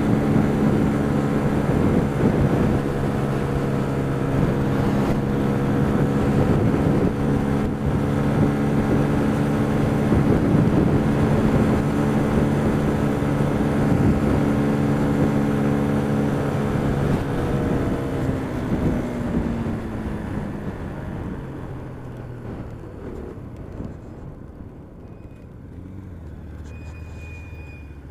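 Motorcycle engine running at a steady cruise with wind rushing past the helmet; over the last third its note drops and the sound fades as the bike slows down.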